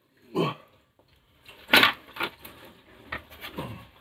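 Scattered knocks and scrapes as a metal fuel tank is lifted out of a car's front compartment, the loudest clunk about two seconds in.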